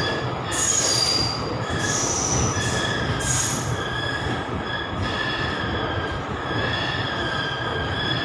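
Passenger coach rolling slowly out of a station with a steady rumble of wheels on the rails. A high, wavering wheel squeal comes and goes over the rumble.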